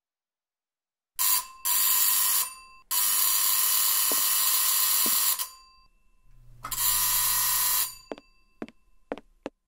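A power tool worked against a metal front door, running loud and harsh in several bursts, the longest about two and a half seconds, with a few sharp knocks near the end.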